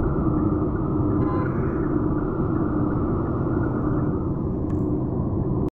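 Steady low rumble of road and engine noise from a car driving through city traffic, heard from inside the cabin. It cuts off suddenly at the very end.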